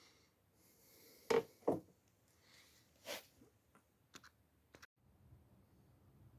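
A few sharp knocks, two close together about a second in and one more near the middle, then several light clicks: objects or tools being handled on a hard surface.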